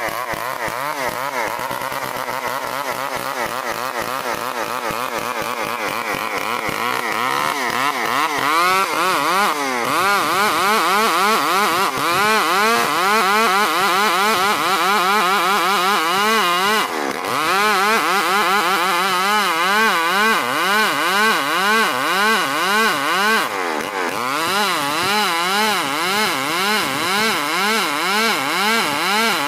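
STIHL 070 two-stroke chainsaw running loud, ripping a log of ulin (Borneo ironwood) lengthwise. Its pitch holds fairly steady at first, then from about eight seconds in it swings up and down over and over as the chain works under load, with two brief drops in speed later on.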